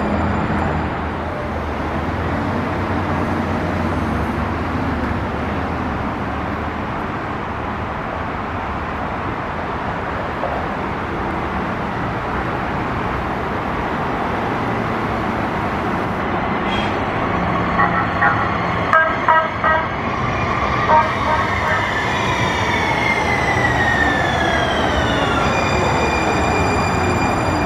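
Siemens light-rail trolley coming into the station: a steady rumble, a few short sharp warning signals about two-thirds of the way through, then the traction motors' whine falling in pitch as the train brakes.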